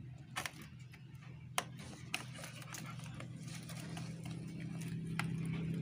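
A few sharp crackles and clicks from the woven palm-leaf basket as a hand strokes the puppy inside it, over a low engine hum that grows steadily louder.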